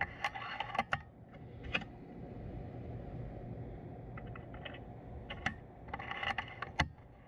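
Light mechanical clicks and rattles of handling, coming in several short clusters over a low steady hum.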